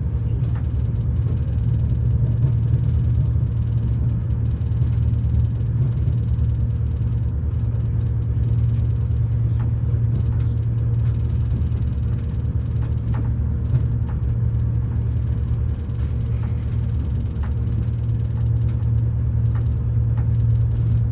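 Diesel train engine idling with a steady low rumble.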